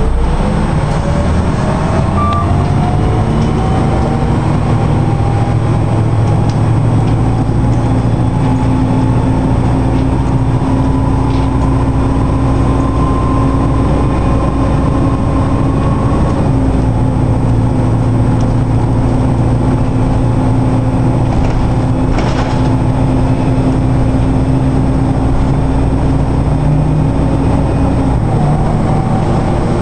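NovaBus RTS-06 transit bus heard from inside while it pulls away and gathers speed: a steady low drone from the drivetrain, with a whine that climbs in pitch over the first half or so and then holds level, and a new rising whine starting near the end.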